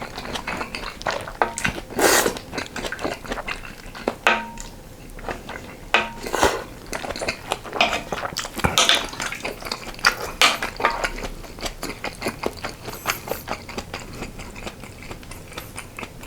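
Eating utensils clicking and scraping against dishes and a pot, with repeated sharp clinks, some of them ringing briefly, amid eating noises.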